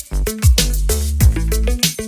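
Background music with a steady beat: drums, a deep bass line and pitched synth notes.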